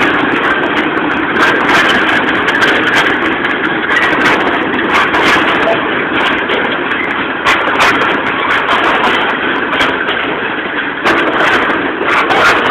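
Freight train passing close by: a GE U20C diesel-electric locomotive's engine running as it goes past, then the freight and tank cars rolling along the rails. Irregular sharp clicks run through it.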